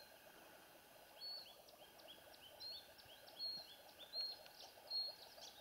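A small bird giving a faint series of short, high chirps, roughly two a second, over quiet open-air background.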